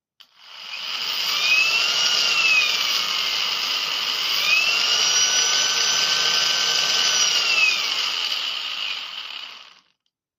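Ego BC3800E brushcutter's brushless motor running on a replacement sensorless BLDC controller, its whine rising and falling twice: a short spin-up and wind-down, then a longer run held for a few seconds before it slows and stops.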